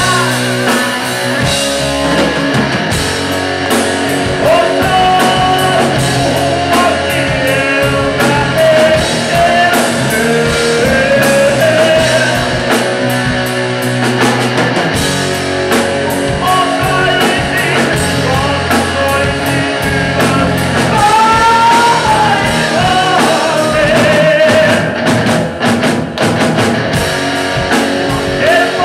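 Live rock band playing: a male lead voice singing over electric guitars and a drum kit.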